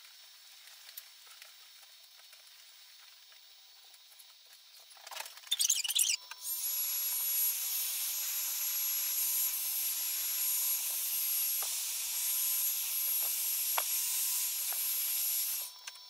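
Heat gun blowing steadily for about nine seconds, a hiss with a thin high whine, shrinking heat-shrink tubing over braided cable sleeving. A brief rustle comes just before it starts about six seconds in, and it cuts off near the end.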